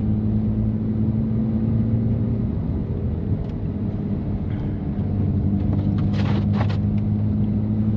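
BMW M3's S55 twin-turbo inline-six with catless downpipes and an open valved exhaust, running steadily at low speed with a low drone that eases slightly in the middle and comes back. A few short noises about six seconds in.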